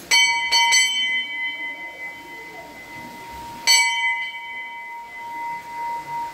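Hindu temple bell struck by hand: three quick strikes at the start and one more a few seconds later, each leaving a long, clear ringing tone that fades slowly.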